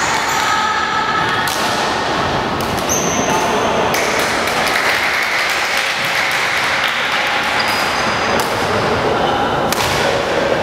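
Badminton rally: a few sharp racket strikes on the shuttlecock a second or more apart, with short high squeaks of shoes on the wooden court, over the steady hubbub of a reverberant sports hall.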